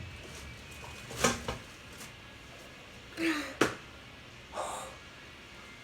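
Several light knocks and clicks, with a brief voiced sound about three seconds in and a short rustle-like burst near the end.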